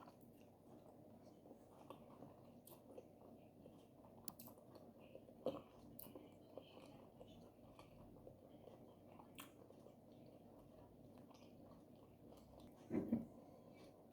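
Faint chewing and wet mouth sounds of someone eating oat fufu with okra soup, with scattered small clicks. There is a louder brief sound about five seconds in and another near the end.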